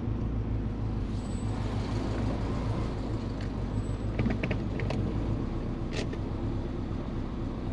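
Turbocharged Subaru Forester's EJ20 flat-four engine running at steady revs, with a few short clicks about four to six seconds in.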